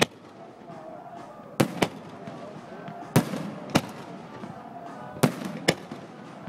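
Aerial fireworks going off: about seven sharp bangs, several coming in pairs a fraction of a second apart, over a steady background murmur.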